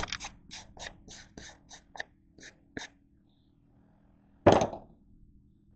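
A hand file being brushed clean of the phosphor bronze filings clogging its teeth: brisk, short scratching strokes, about three a second, that fade out. About four and a half seconds in comes one louder, longer scrape.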